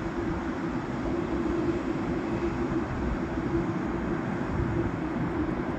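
Boeing 747's four jet engines running at taxi power as the airliner rolls along the taxiway: a steady noise with a low, even hum through it.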